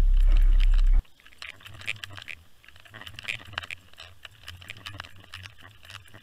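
A trolling boat running, a loud steady rumble with wind on the microphone, cut off sharply about a second in. What follows is underwater sound from a camera towed beside a trolled lure: irregular clicks and ticks over a faint low hum.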